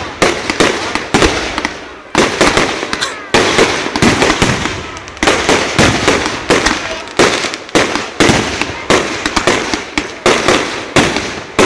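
Aerial fireworks shells bursting one after another in a steady barrage, about two sharp bangs a second, each trailing off with crackle and echo before the next.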